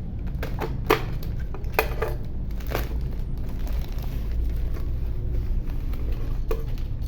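Packaging and parts being handled during an unboxing: crinkling with a few sharp clicks and knocks, over a steady low hum.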